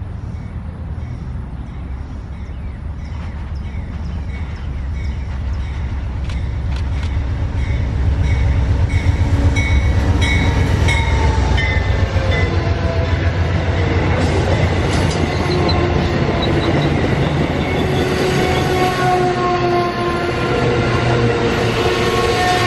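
Diesel-hauled Amtrak passenger train approaching and passing close by: a low rumble that swells as the locomotive goes past, with wheel clicks over the rails. After that the coaches roll by, with a ringing chord of several high tones that slowly sinks in pitch.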